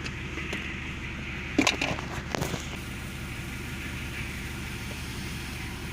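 Steady low hum of a car's engine idling, heard inside the cabin, with a few sharp plastic clicks and knocks from handling the charger's mount about one and a half to two and a half seconds in.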